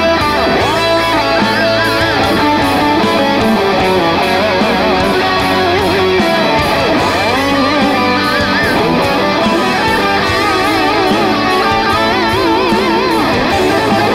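Electric guitar playing a lead line full of string bends and wide vibrato over a steady band backing with bass and regular cymbal hits.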